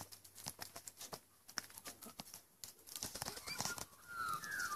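Scattered light clicks and ticks, then a few short chirping bird calls, rising and falling, in the last second or so.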